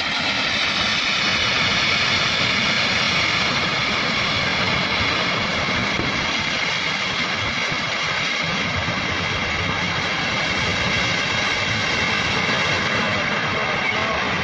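Flood-swollen river in full spate: a loud, steady roar of rushing water with no separate crash standing out.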